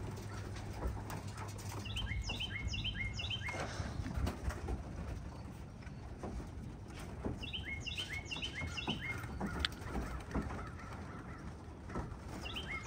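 A small songbird sings the same quick run of high chirps three times, about five seconds apart, over scattered light taps and wing flaps from young racing pigeons in a loft's landing cage.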